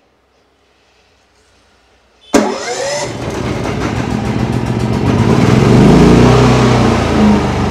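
Senci portable generator's engine started by remote: after quiet, it catches suddenly about two seconds in, climbs in pitch as it speeds up, and settles into steady running, loudest around six seconds and easing a little near the end.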